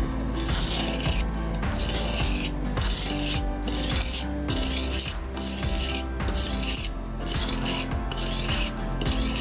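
A steel knife blade being sharpened, drawn in repeated scraping strokes about once a second.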